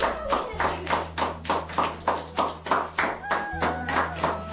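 A group of people clapping their hands in a steady rhythm, about five claps a second, with voices alongside.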